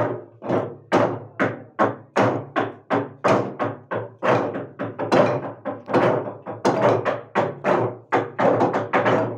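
Naga log drum, a long hollowed tree trunk, beaten in unison by a row of men with heavy wooden beaters: a steady rhythm of wooden strokes, about two or three a second, quickening near the end.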